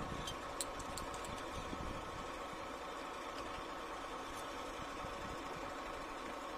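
Light metallic clicks of hand tools against the rocker-arm adjusting screws of a Hino 260 Ti diesel's valve train during valve clearance adjustment, a few in the first second or so. Under them runs a steady mechanical hum.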